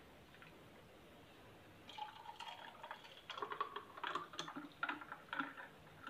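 Thick, milky shikanji made from rabri and strained curd pouring from a plastic blender jar into a glass over ice cubes: faint, irregular trickling and splashing that starts about two seconds in.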